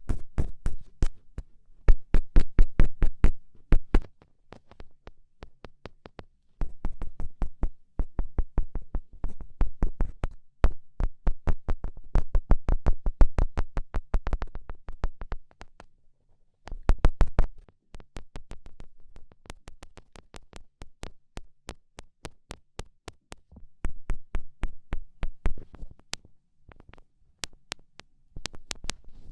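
Fingertip pokes tapping on the microphone: runs of quick taps, several a second, broken by short pauses.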